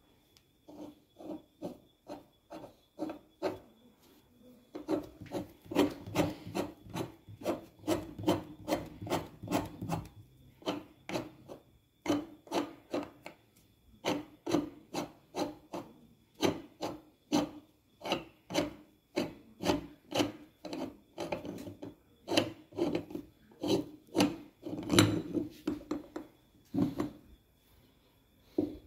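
Threaded metal lid of a cylindrical canister being unscrewed in short twists, the threads grating with each turn, about two to three strokes a second with a few short pauses.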